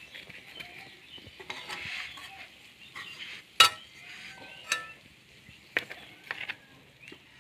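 A flat spatula pressing and scraping a crumbly biscuit mixture into a plastic box, with several sharp taps, the loudest about halfway through.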